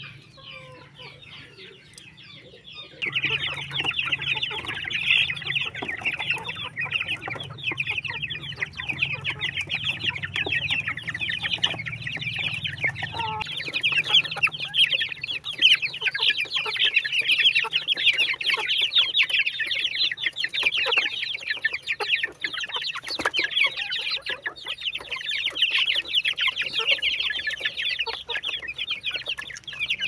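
A crowded flock of chickens, hens and young birds, clucking and peeping. The calling is fainter at first, then becomes loud, dense and continuous about three seconds in.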